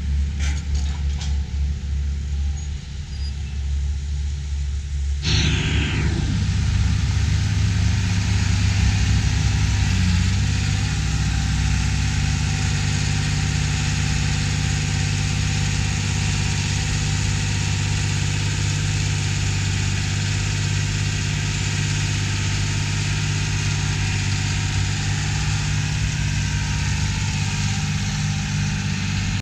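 Farm tractor diesel engines running steadily. About five seconds in, the sound suddenly grows louder and fuller, with a hiss added, and then holds steady.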